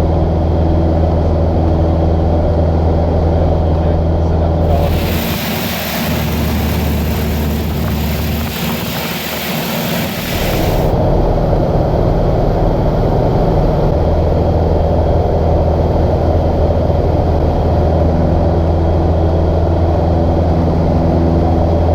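Cessna 150's four-cylinder piston engine running steadily in flight, a constant drone heard from inside the cockpit. From about five seconds in, a loud hiss covers it for roughly six seconds, and the engine's low tone shifts until about fourteen seconds in.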